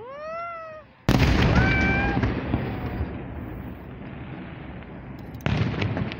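Aerial firework shell bursting: a sudden loud boom about a second in, its rumble dying away over several seconds, then a second sharp bang near the end.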